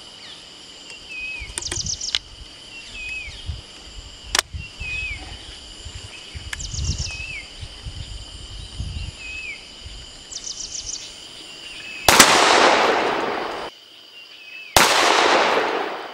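Visco single-barrel 12-bore break-action shotgun: a few sharp clicks as it is loaded and snapped shut, then one loud shot about twelve seconds in, heard a second time some three seconds later as a second take of the same shot, each bang tailing off over about a second. A bird chirps repeatedly and insects drone steadily behind.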